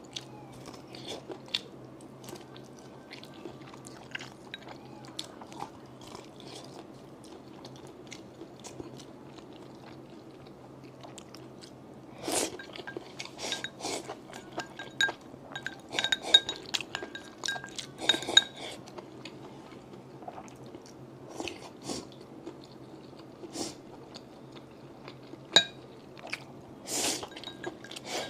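Close-miked eating: chewing and crunchy bites with scattered sharp clicks and light clinks of utensils, busiest in the middle, over a faint steady low hum.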